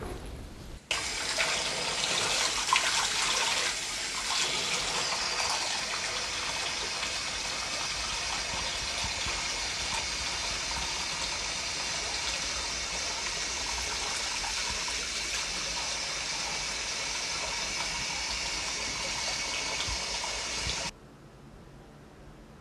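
Bathroom sink tap running steadily, water splashing into the basin. It cuts off suddenly near the end.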